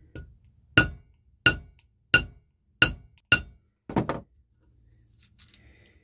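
Hammer striking a wire laid across a thick silver sheet, seven sharp ringing metal blows about two-thirds of a second apart, the last two close together. The wire is being driven into the silver to score a line for a 90-degree fold.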